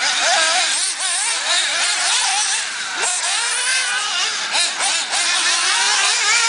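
Several 1/8-scale nitro RC buggy engines buzzing around the track, overlapping, their high whines rising and falling as the cars throttle up on the straights and back off into the corners.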